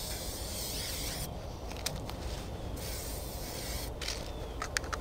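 Aerosol spray can hissing in two bursts of about a second each, sprayed down the legs of camouflage pants and rubber boots, with a few light clicks near the end.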